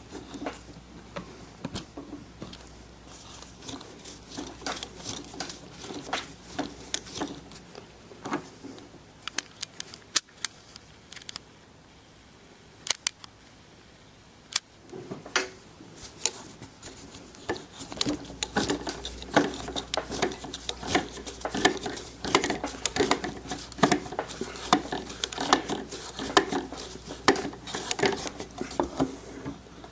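Threaded insert nut being driven into a drilled hole in wood with an Allen key chucked in a drill: a run of irregular clicks and creaks, sparse at first and denser and louder over roughly the last twelve seconds.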